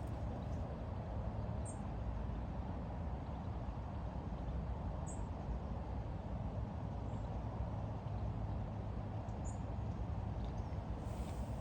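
Steady low outdoor rumble, with three brief, faint, high bird chirps spread a few seconds apart.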